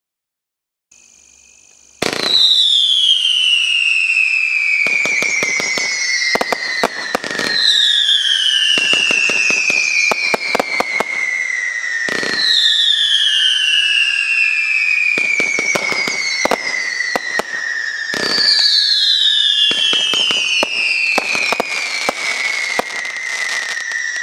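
Thunder Howl firework going off: four long howling whistles, each falling steadily in pitch over about five seconds, one after another, with rapid crackling bangs between them. A faint sound comes about a second in, just before the first whistle starts with a sharp crack.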